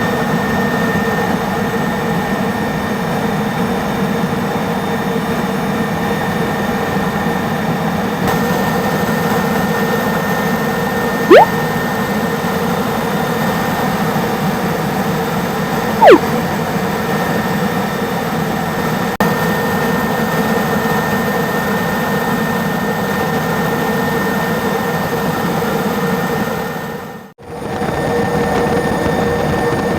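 Super Puma helicopter's twin turboshaft engines and rotors running in flight with a steady, loud drone holding a constant whine. Two brief sharp chirps cut through about five seconds apart, and the sound drops out for a moment near the end.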